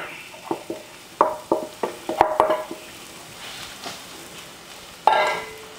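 Breadcrumbs poured from a stainless steel bowl into a skillet of onions frying in butter, the bowl knocking several times against the pan with short ringing taps, then stirred with a wooden spatula over a faint sizzle.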